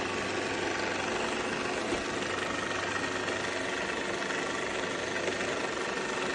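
A motor running steadily with an even hum and whine, unchanged throughout; it starts abruptly at a cut.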